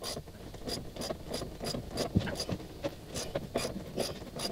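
Socket ratchet clicking in short, even strokes, about three clicks a second, as it tightens the bolt of a flaring tool, drawing a flare into a brass through-hull drain tube.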